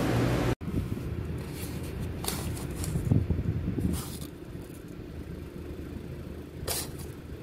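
A steady hum stops abruptly about half a second in. A low steady rumble follows, with a few short crackles of paper receipts being handled over a cardboard pizza box.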